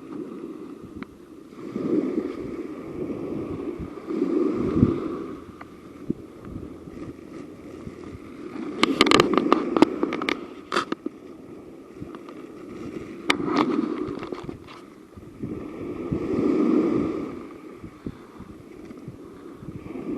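Wind buffeting the microphone in gusts that swell and fade every few seconds, with two bursts of crackling clicks and scrapes about nine and thirteen seconds in.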